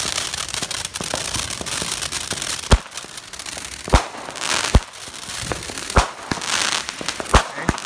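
Consumer fireworks going off. The first couple of seconds are a steady hissing crackle of a spark fountain. After that come about six sharp bangs of aerial shells bursting, with crackling between them.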